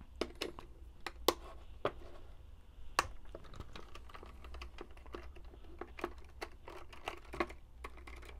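A screwdriver loosening the screws of a Mission TPR launcher's plastic clamshell housing: irregular light clicks and ticks as the tip engages and turns the screw heads, with hands knocking on the plastic shell. The sharpest clicks come about a second in and again about three seconds in.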